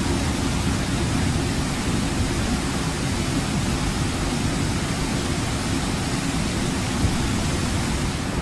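Hurricane-force wind and driving rain, a loud steady rush with a heavy rumble of wind buffeting the microphone.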